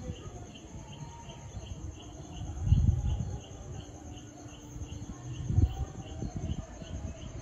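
Night chorus of crickets: a steady high trill with a second chirp repeating about three times a second. Two brief low rumbles come through, about three seconds in and again a little after five and a half seconds.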